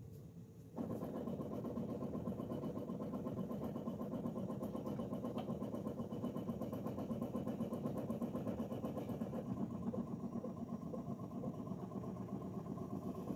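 Ricoma EM1010 multi-needle embroidery machine running a slow trace, driving the hoop around the outline of the design without stitching. It is a steady motor hum with a fast, even pulse, starting about a second in.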